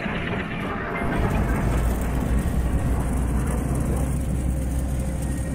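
Engine of a World War II amphibious duck boat (DUKW) running as it drives into the water, a steady low drone that grows louder about a second in and holds.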